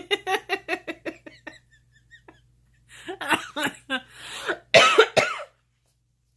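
A woman with the hiccups in a fit of coughing and laughter. A quick run of short voiced bursts fades away, then a few louder, breathy coughs and gasps come about three seconds in.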